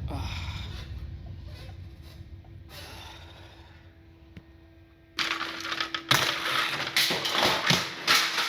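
Laptop being handled: a low rumble that fades away, then from about five seconds in a dense run of clicks, knocks and scraping on hard casing.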